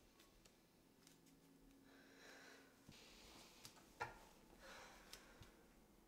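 Near silence: faint room tone with a few soft rustles and one sharp click about four seconds in.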